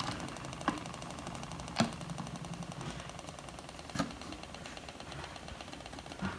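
Small battery-powered electric motor of a homemade cardboard-box spin-art machine running steadily as it spins the paper, with four sharp taps or knocks spaced through it.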